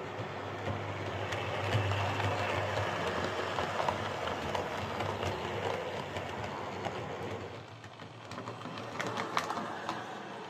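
Hornby Class 142 Pacer OO gauge model railbus running on the track. Its small motor whirrs and its wheels rattle along the rails, freshly cleaned and lubricated. It quietens about three quarters through, then clicks sharply over the track several times near the end.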